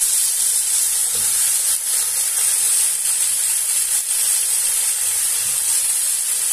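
Blue marlin steaks and sautéed onions and tomatoes sizzling steadily in a pot, the fish starting to cook in its own juices.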